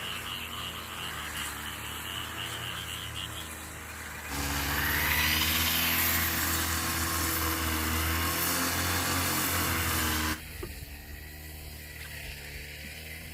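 A motor running steadily. It is much louder for a stretch from about four seconds in to about ten seconds in, starting and stopping abruptly.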